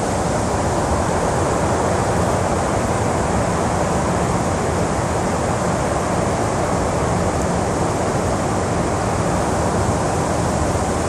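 Fast river water rushing over a riffle: a steady, unbroken wash of moving water.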